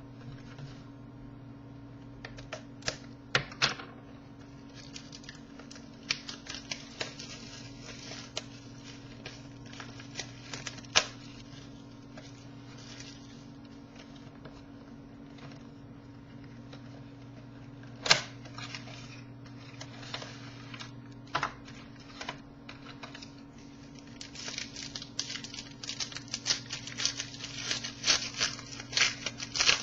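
Scattered clicks, taps and rustles of a trading-card box and its packaging being opened and the cards handled, growing busier near the end, over a steady low hum.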